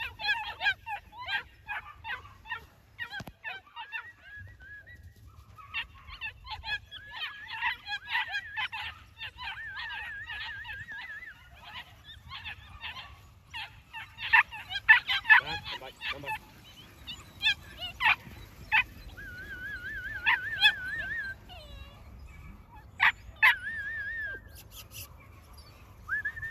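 A litter of New Zealand Huntaway puppies yipping and barking in quick, high-pitched bursts, with the loudest, sharpest yaps about halfway through. A short warbling whistle sounds now and then.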